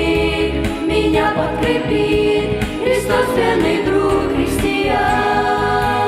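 A youth vocal group singing a Russian-language song in harmony into handheld microphones, over instrumental accompaniment with steady low bass notes.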